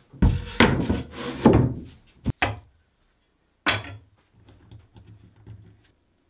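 Plywood countertop being shifted on its wooden cabinet: a scraping, rumbling slide with two short knocks about two seconds in. After a pause comes one sharp clack, then faint rubbing of a pencil and ruler marking a line on the plywood.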